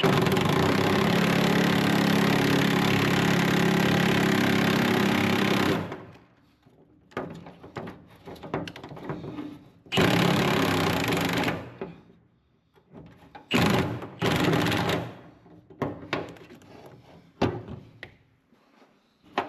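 Power impact wrench hammering on an old seatbelt mounting bolt in one long run of about six seconds, then in shorter bursts, trying to break it loose.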